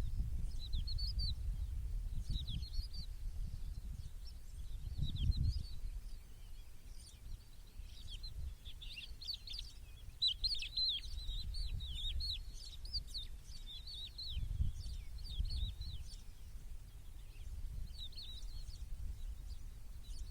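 Small birds chirping in short, quick sweeping notes, coming in a thicker cluster about halfway through. Under them is a low rumble that swells a few times.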